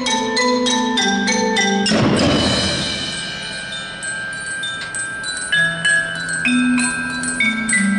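School percussion ensemble playing a tune on marimba and other mallet keyboards in quick, separate notes. About two seconds in, a crash rings out and fades under a held high bell tone. The quick mallet notes start again a little past halfway.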